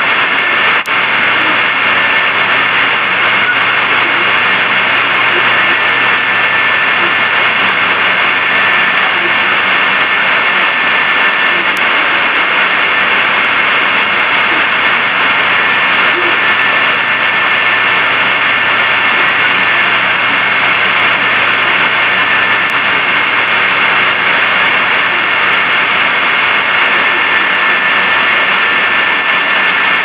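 Steady loud hiss from a recording whose lows and highs have been filtered away and which has then been re-amplified. The hiss stops sharply above the upper-middle range and carries a faint steady whistle through it.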